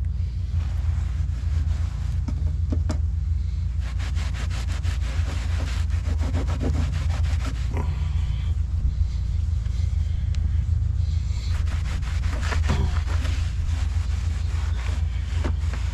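A cloth rag scrubbing back and forth on a ribbed aluminium trailer deck: quick, scratchy rubbing strokes that come and go. Under it runs a steady low rumble, which is the loudest sound.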